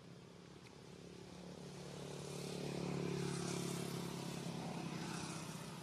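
A motor vehicle engine passing by: a steady hum that grows louder to a peak about halfway through, then fades away.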